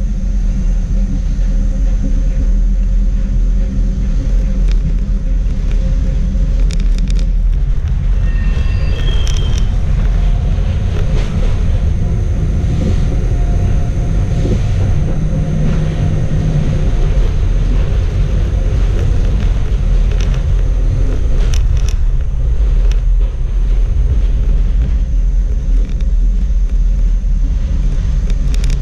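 Ride inside a Schindler Waggon Be 4/6 tram running along the track: a steady low rumble of wheels and running gear, with scattered clicks and knocks and a few brief high-pitched tones about eight to ten seconds in.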